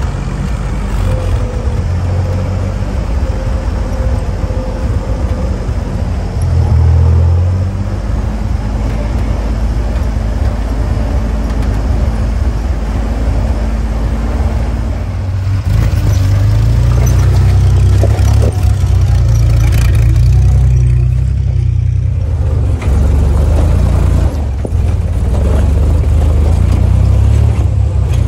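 1944 Willys Jeep's four-cylinder flathead engine running as the Jeep drives over a rocky dirt trail. It gets louder about halfway through, with a few short knocks from the rough ground.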